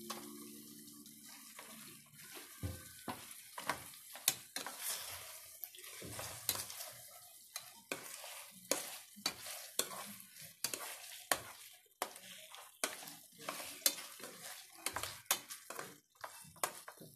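A plastic ladle stirring and scraping around a frying pan of simmering adobo sauce thickened with cornstarch. Irregular clicks and knocks of the ladle against the pan come over a light sizzle.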